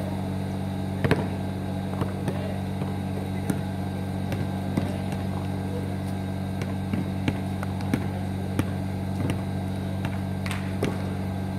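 Steady low mechanical hum of several tones, with scattered sharp knocks.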